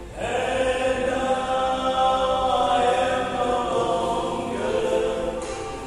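Male vocal group of five singing a gospel song in close harmony, holding long chords. A new phrase comes in just after the start, and the chord shifts about four and a half seconds in.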